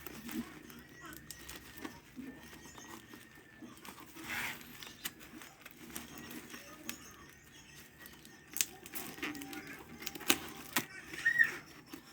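Handling noises: light rustling with scattered sharp clicks and taps, several louder ones in the second half.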